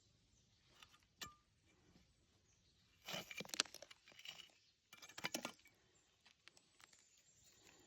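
Quartz crystals and rock clinking against each other in two short clattering bursts, about three and five seconds in, with a single click a second in.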